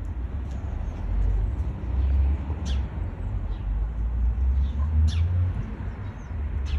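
A heavy low rumble of wind buffeting the microphone, with a few short, high bird chirps, about three of them.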